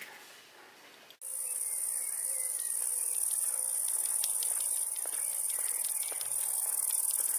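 A dense, high, steady chorus of crickets chirring in summer grass, starting abruptly just over a second in after a moment of quiet room tone.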